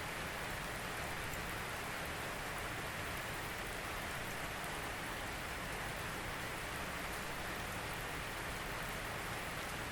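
Steady rain falling, an even hiss with faint individual drops ticking.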